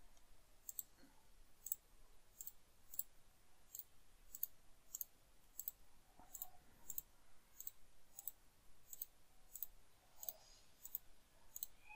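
Computer mouse clicking faintly at an even pace, about three clicks every two seconds, as items in a list are clicked one after another.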